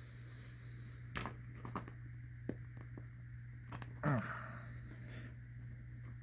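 Rubber and plastic gas mask parts being handled and pressed back into place: scattered light clicks and a short falling squeak about four seconds in, over a steady low hum.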